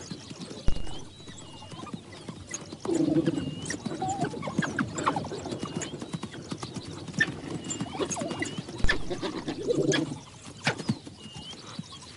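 Wildebeest giving short low bellows about three seconds in and again near the end while African wild dogs attack it, over constant scuffling of hooves and feet. Short high chirps recur about once a second, and two loud thumps stand out, one near the start and one about nine seconds in.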